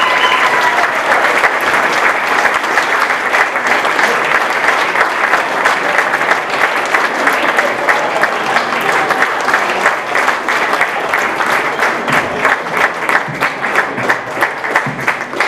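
Audience applauding, a dense patter of many hands that thins out into separate claps near the end.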